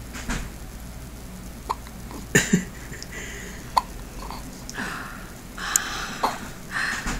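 A run of short, sharp hiccups, spaced irregularly a second or two apart.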